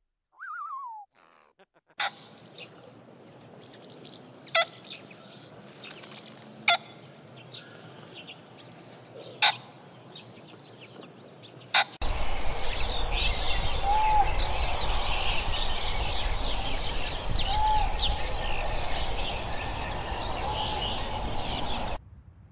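Birds calling over outdoor ambience: several sharp short calls a couple of seconds apart, then, about halfway through, a louder steady hiss filled with many small high chirps and a few short repeated tones.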